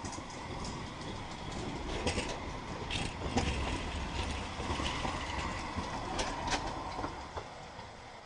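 Electric tram passing close by and moving away: a rolling rumble with a light whine and irregular sharp clicks of wheels over the track, fading near the end.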